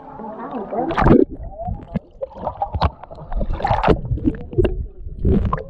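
Water splashing and sloshing around swimmers in clear lake water, with irregular loud surges and muffled underwater gurgling as the camera goes below the surface.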